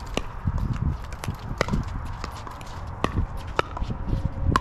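Pickleball paddles striking a hollow plastic ball during rallies: sharp, irregular pops about half a second to a second apart.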